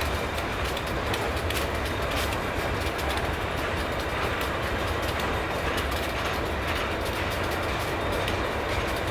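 Freight train of loaded steel-coil cars rolling past at steady speed: a continuous rumble of steel wheels on rail, with faint clicks scattered through it.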